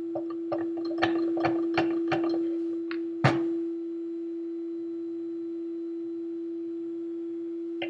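Metal clicks and knocks from a hand-lever arbor press as a brushless motor's shaft is pressed down a tap further and the motor is taken out. About a dozen come in the first three seconds, ending with a sharp knock, the loudest, a little past three seconds. A constant steady tone hums underneath.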